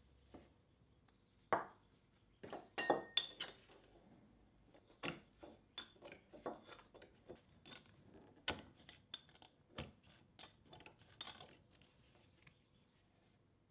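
Scattered light clicks, taps and metallic clinks of a steel ring and hand tools set down and handled on a wooden block, with a brief bright ring of metal about three seconds in.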